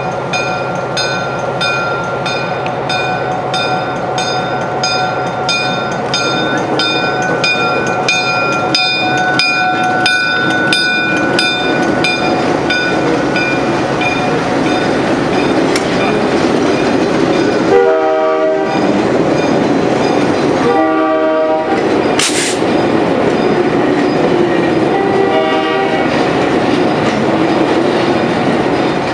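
MLW-built Alco diesel locomotive passing slowly with a train of hopper cars, its engine and wheels rumbling steadily on the rails. A bell rings about twice a second for the first twelve seconds or so, then the air horn sounds three short blasts, the last one fainter.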